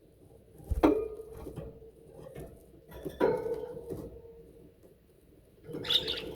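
Pet budgerigars moving about their cage: three sharp clinks and knocks on metal or hard toys, about a second, three seconds and six seconds in, each leaving a brief ringing, with a light patter of small movements between them.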